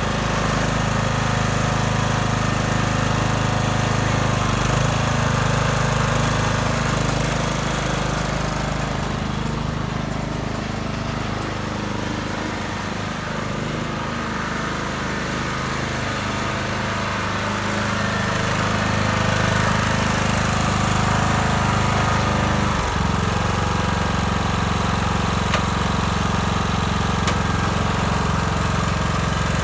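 Troy-Bilt riding lawnmower engine running steadily. About three-quarters of the way through, its pitch drops sharply for a moment, and it then runs on at a slightly different speed.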